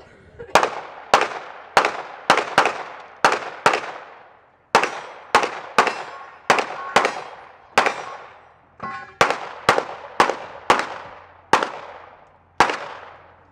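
A string of about twenty gunshots from a competitor's firearm, fired unevenly half a second to a second apart with a couple of longer breaks, each crack trailing off in a short echo.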